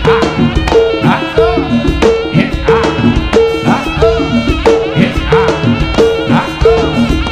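Javanese jaranan sentherewe music played by a gamelan-style ensemble: a pitched gong note struck about every 0.6 s over busy hand-drum strokes and ringing metallophone tones, in a steady driving rhythm.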